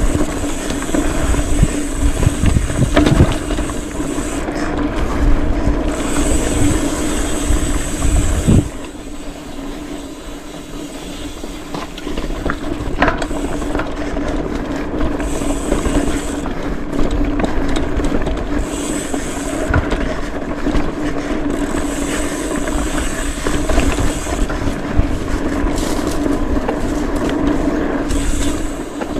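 Mountain bike riding a dirt trail: knobby tyres rumbling over rough ground with wind buffeting the microphone. The rumble is heavier for the first eight seconds or so, then eases. A high, thin freehub buzz comes and goes in spells, as the Speedone Soldier rear hub freewheels while coasting.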